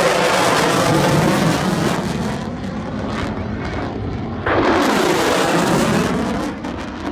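Loud jet aircraft flying past, a steady roar whose pitch pattern sweeps as it passes. It eases slightly after about two seconds and then jumps back up suddenly about four and a half seconds in.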